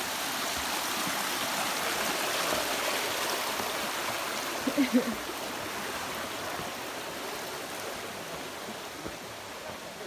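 Rushing water of a mountain stream, a steady hiss that swells over the first few seconds and then slowly fades. A short burst of voice cuts in briefly about halfway.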